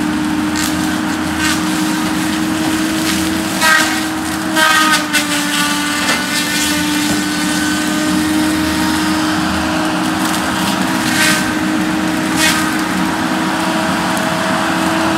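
Cat 573C wheeled feller buncher running steadily with a constant whine as it drives through brush. It is broken by a few sharp cracks and clanks, about four to five seconds in and again around eleven and twelve seconds.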